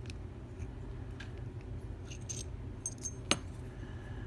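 Small metal lock pins clinking and ticking lightly as they are handled and set down on a surface, with one sharper click about three seconds in, over a steady low hum.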